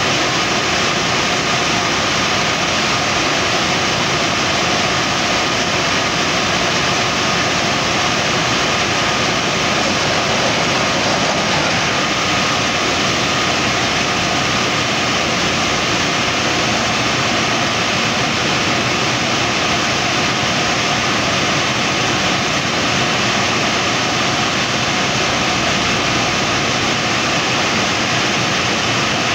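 Compressor-driven borehole drilling rig at work: a loud, steady rush of compressed air and engine noise as air blows dust up out of the hole, with a faint high whine through the first dozen seconds.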